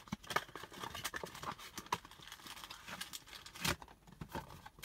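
Foil trading-card pack wrappers crinkling and tearing open, with the cards handled: a run of small scattered clicks and rustles, the loudest about three and a half seconds in.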